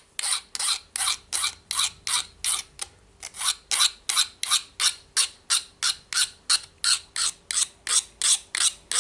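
Hand file being drawn back and forth over the steel blade of a mixer-grinder jar, sharpening its fourth cutting edge: an even run of short rasping strokes, about three a second.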